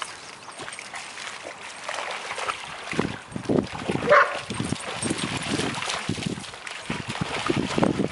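A dog gives one short, high bark about four seconds in, among the splashing of dogs wading and running through shallow water.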